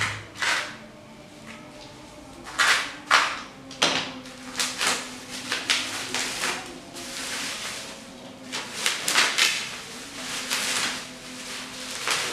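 Plastic bubble wrap and packing tape being cut and peeled off a long package, crinkling and rustling in irregular bursts with a few sharper crackles.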